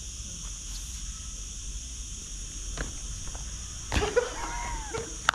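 Sneakers striking a hard outdoor court during jump attempts: a few sharp footfalls, the loudest about four seconds in, over a steady high hiss.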